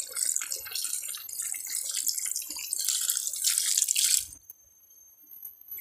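Thick coconut milk being poured into a wok of cooking chicken pieces, a liquid pouring sound with many small crackles. It cuts off abruptly about four seconds in, leaving near silence.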